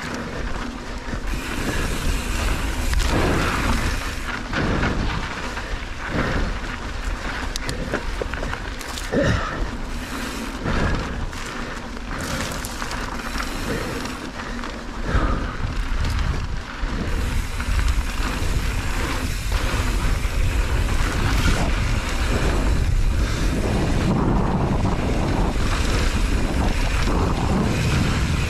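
Mountain bike descending a dry dirt singletrack at speed: wind buffeting the camera microphone over the crunch of tyres on dirt, with sharp knocks and rattles as the bike hits bumps, steadier in the last few seconds.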